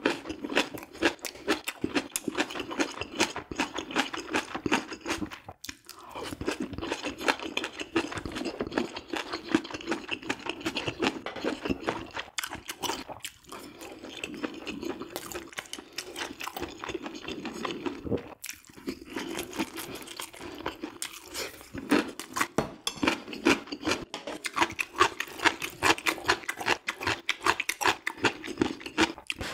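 Close-miked chewing and crunching of food: a dense run of wet clicks and crunches, with short breaks about six, thirteen and eighteen seconds in.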